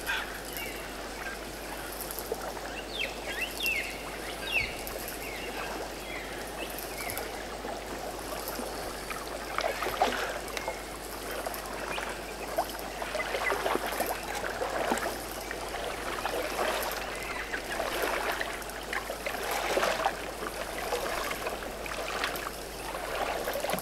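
River water trickling and lapping, with many small splashes, and a few short bird chirps about three to four seconds in.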